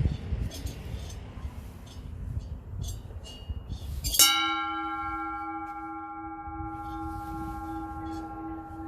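Low wind rumble on the microphone, then about four seconds in a metal bell is struck once and rings on, its several tones slowly fading, the low note wavering.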